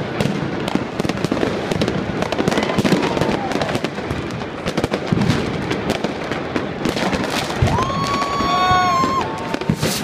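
Fireworks and firecrackers going off all around in dense, continuous crackling and popping bangs. Near the end a steady whistling tone lasts about a second.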